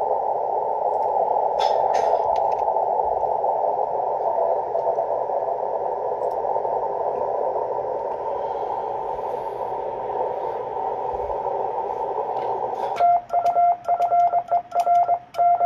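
Shortwave receiver static heard through a narrow CW filter, a steady band of hiss with a faint Morse tone in it. About 13 seconds in the static cuts off and a loud, clean Morse code (CW) tone starts keying out dits and dahs.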